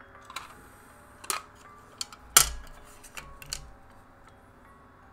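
Plastic cassette tape and its case handled and opened: a run of sharp clicks and taps, the loudest about two and a half seconds in.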